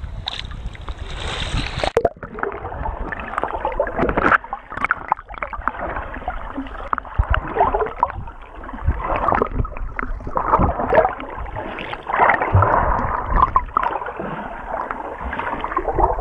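Sea water sloshing at the surface, then about two seconds in the sound turns muffled as the camera goes under water: churning water and bubbles from a person diving and swimming close by, with irregular rushes and knocks.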